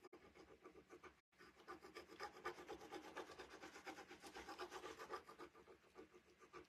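Faint, rapid scratchy rubbing of a small burnishing tool over the backing sheet of a rub-on transfer laid on a wooden cutting board, pressing the transfer down onto the wood. The short strokes follow one another quickly, with a brief pause about a second in.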